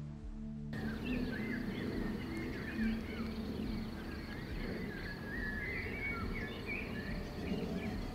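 Soft ambient music cuts off under a second in, giving way to several songbirds chirping and warbling at once, over a steady faint high buzz and low outdoor rumble.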